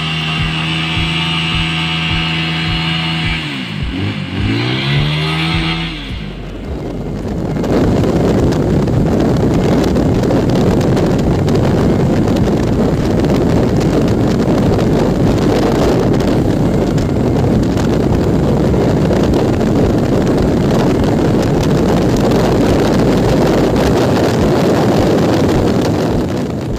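Motorcycle engine held at high revs through a rear-wheel burnout, its pitch dipping and climbing again about four seconds in. After about six seconds this gives way to a steady rush of wind buffeting the microphone over the engine of a motorcycle being ridden at speed.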